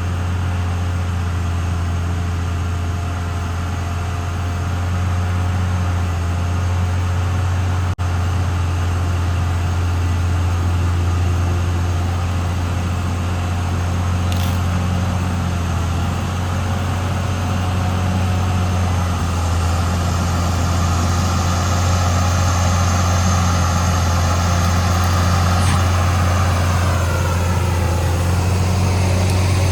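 Cat D6R XL bulldozer's diesel engine running with a steady deep drone. A higher whine builds through the second half and drops away near the end.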